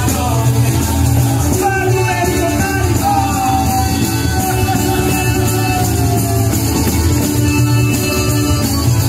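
Live southern Italian folk song played on acoustic guitar, with a voice holding long notes, one of them falling slowly in pitch.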